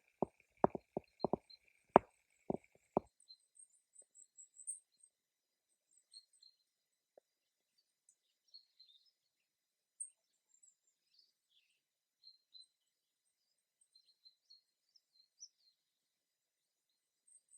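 Wild songbirds chirping in forest, with sparse, faint, high short calls scattered throughout. For the first three seconds a quick series of loud knocks and thumps, the loudest sounds here, runs over a steady high hiss, then cuts off suddenly.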